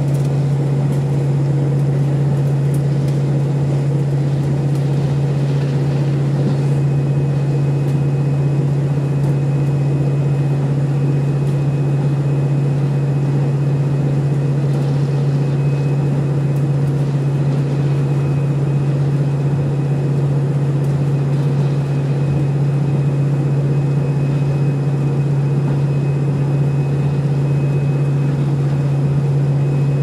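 Inside a KiHa 40 diesel railcar running at a steady speed: the diesel engine's constant low drone under the running noise of the car.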